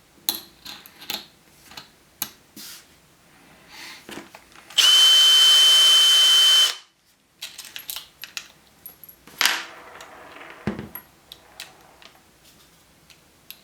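Light clicks and taps of handling, then a power drill runs for about two seconds with a steady whine, driving a screw held on the bit by a magnet, and stops suddenly.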